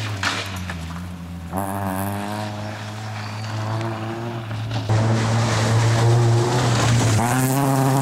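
Fiat Seicento rally car's engine being driven hard on a gravel stage, its pitch climbing under acceleration and dropping back at each lift and gear change. It gets louder about five seconds in as the car is close by.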